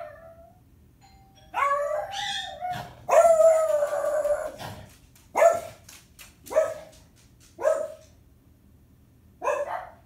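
Timneh African grey parrot vocalising: two longer calls that slide in pitch, then four short, sharp calls about a second apart that sound like a dog's bark.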